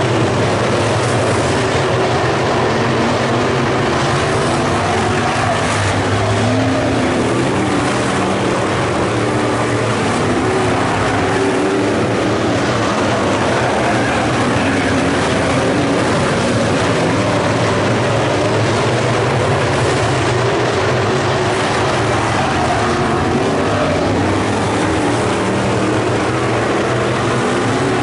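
Several dirt-track modified race car engines running hard in a pack, loud and continuous, their overlapping notes rising and falling.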